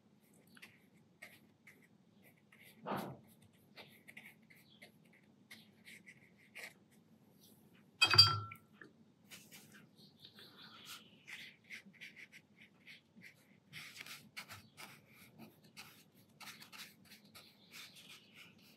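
Watercolour brush lightly dabbing and stroking on paper and working paint on the mixing palette: faint, scattered soft scratches. There is a soft thump about three seconds in and a sharp knock with a brief ring about eight seconds in.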